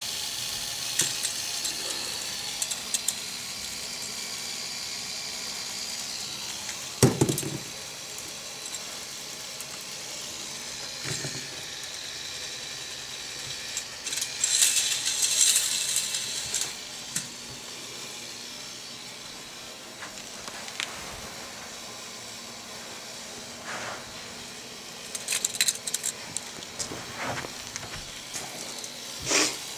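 K'nex roller coaster running: the small plastic train rattles and clatters along the plastic track in bursts, over steady hiss and scattered clicks from the gear-driven chain lift. There is one thump about seven seconds in.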